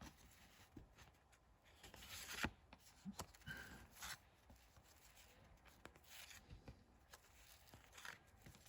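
Faint handling of paper trading cards: soft slides and small clicks as cards are moved one behind another, with a slightly louder brush about two and a half seconds in and near silence between.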